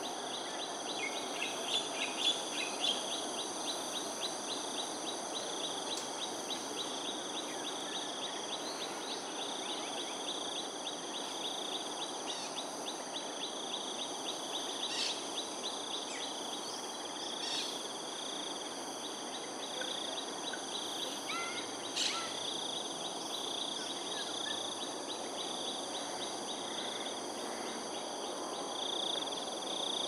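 Steady chorus of insects buzzing and trilling in several high-pitched layers, with a few brief bird chirps scattered through, the clearest about 15 and 22 seconds in, over an even background noise.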